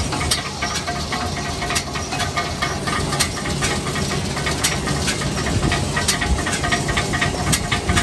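Krone Comprima CF155XC round baler running empty, its rollers, slats and belt turning with a steady mechanical clatter and frequent sharp clicks and rattles over a low drone.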